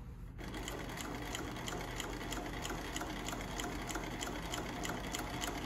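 Consew 227R-2 cylinder-bed walking-foot industrial sewing machine stitching through six layers of fabric. It starts about half a second in and runs with a steady, even rhythm of needle strokes.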